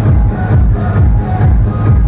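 Loud electronic dance music with a steady beat and heavy bass, played through a large PA sound system with subwoofers.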